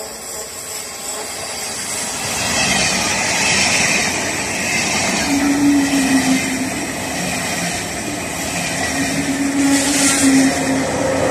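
ICE 2 (DB Class 402) high-speed electric train running into the station along the platform: wheels rumbling on the rails and rushing air, growing louder as the train draws level. A steady humming tone comes in twice.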